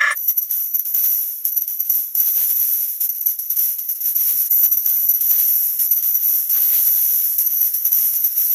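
A 'wah wah' sound effect sped up so far that it has turned into a dense, very high, shimmering hiss, with a faint crackle underneath. It switches abruptly to this at the start from a lower, steadier tone.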